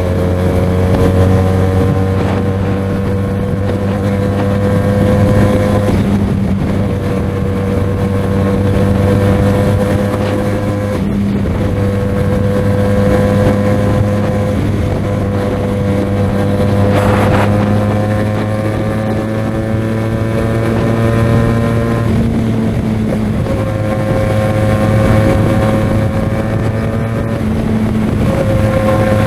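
QJMotor SRK 400 motorcycle engine running at a steady cruise, with wind on the microphone. The engine note holds mostly level, creeping up slowly in pitch with a few brief dips.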